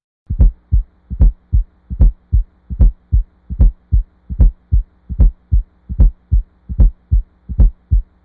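Recorded heart sounds with an S4 gallop, at about 75 beats a minute: a soft extra sound just before each loud first heart sound, then the second heart sound. The S4 classically occurs in hypertrophic cardiomyopathy and hypertension. A faint steady hum runs underneath.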